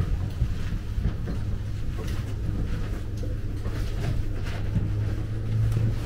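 Steady low rumble of a cable car cabin in motion, heard from inside the cabin, with a few faint clicks.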